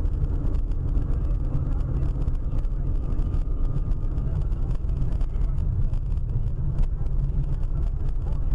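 Steady low rumble of a car on the move: engine and road noise.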